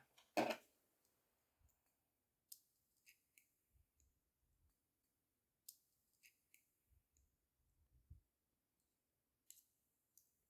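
A short rattle at the start, then scattered small, sharp clicks and light taps from handling jewelry-making tools and materials such as brass wire, hoops and gemstone chips.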